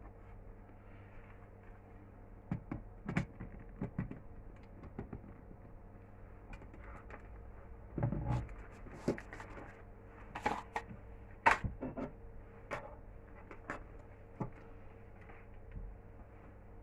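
Scattered clicks, knocks and plastic rustling as a camcorder is handled and fixed onto a tripod, the sharpest click about eleven seconds in, over a faint steady hum.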